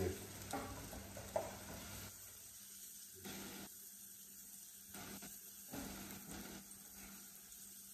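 Eggs sizzling faintly in a frying pan while a slotted spatula pushes and chops at them, with a few short scrapes and taps against the pan.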